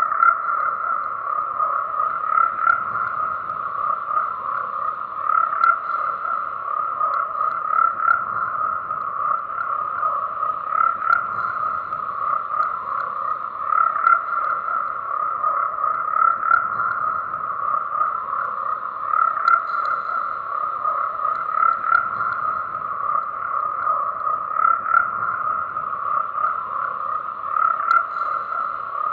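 Frog chorus: many frogs croaking at once in a dense, steady drone of overlapping pulsing calls, with louder single croaks standing out every few seconds.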